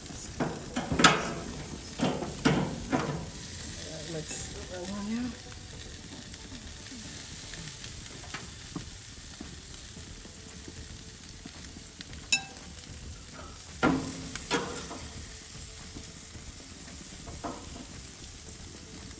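Food sizzling steadily in the heat, broken by a few sharp knocks and clatters of cooking utensils. The clatters come in a cluster in the first three seconds, the loudest about a second in, and again around twelve to fifteen seconds in.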